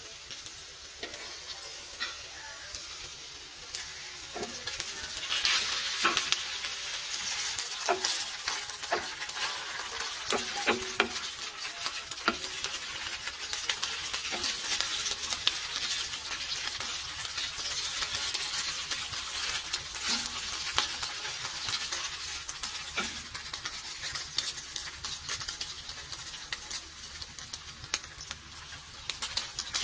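Slices of beef loaf sizzling and crackling in hot oil in a frying pan, stirred with a wooden spatula that knocks and scrapes against the pan. The sizzle grows louder about five seconds in.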